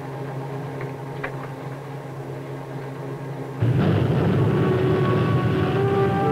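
A steady low interior hum, then about three and a half seconds in a sudden loud rush and rumble of sea and engine noise from a submarine running surfaced through heavy waves.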